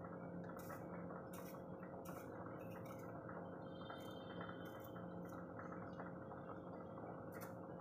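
Hand peeler scraping the skin off small potatoes in short, quiet strokes that come about once a second, over a faint steady hum.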